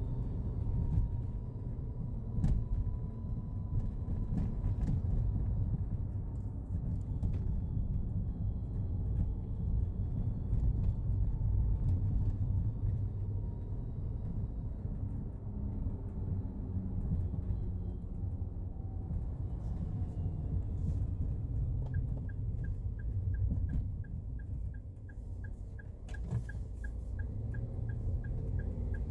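Daihatsu Hijet Cargo kei van running, a steady low rumble with occasional clicks. A fast, regular light ticking joins in about three-quarters of the way through.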